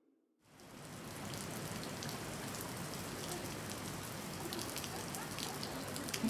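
Steady rain falling, fading in about half a second in, with scattered sharp clicks.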